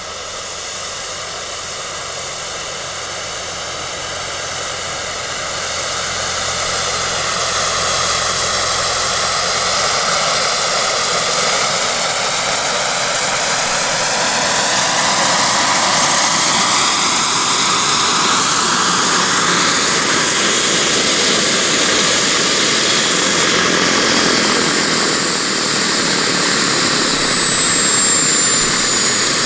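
Scale RC SA 315B Lama helicopter's model turbine engine, a steady high whine mixed with rotor noise, growing louder over the first several seconds as the helicopter comes in close to hover and set down. Near the end, with the helicopter on the ground, the high whine starts to fall in pitch as the turbine spools down.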